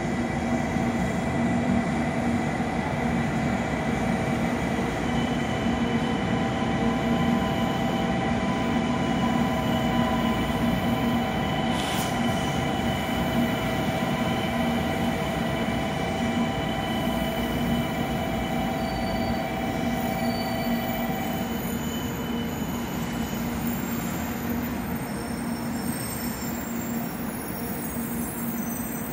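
A 700 series Rail Star shinkansen trainset running slowly past the platform. Its steady running noise carries several steady whining, squealing tones that fade out about 21–23 seconds in.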